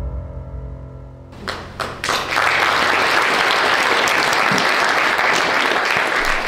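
A film's sustained music fades out, and about a second and a half in an audience starts clapping: a few scattered claps first, then steady applause.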